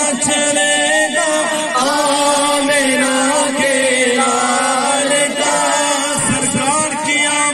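A man singing an Urdu naat solo into a microphone, drawing out long, wavering melodic notes without pausing for words.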